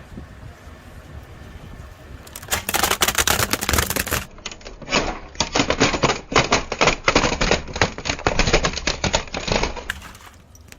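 A car tyre slowly crushing a plastic radio: a low rumble, then, from about two and a half seconds in, a long run of rapid cracking and snapping of plastic that stops near the end.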